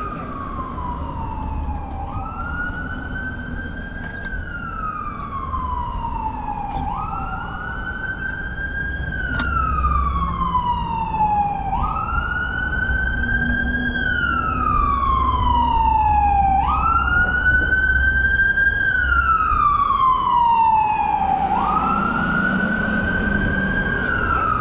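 Emergency vehicle siren wailing. Each cycle swoops up quickly and then falls slowly, repeating about every five seconds, and it grows louder about halfway through. A low rumble runs underneath.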